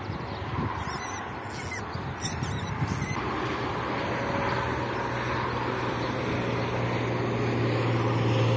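An engine running with a steady low hum that grows louder toward the end as it comes nearer. A few sharp high clicks sound about one to three seconds in.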